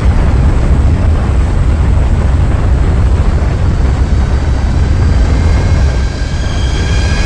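Loud, steady rush of wind and aircraft noise from a plane in flight, with a heavy low rumble, as heard from outside the fuselage.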